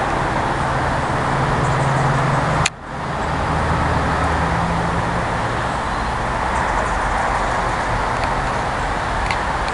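Steady road traffic noise with a low engine hum, broken by a click and a brief drop-out about three seconds in.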